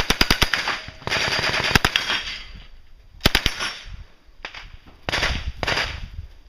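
Uzi-type submachine gun firing full-auto in several bursts: a rapid string right at the start lasting under a second, more fire between about one and two seconds in, a short burst a little after three seconds, and another around five seconds in.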